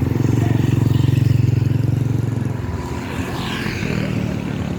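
Heavy diesel engine of a passing bus running loud and close, then easing off about two and a half seconds in, with a brief rush of road noise about three seconds in.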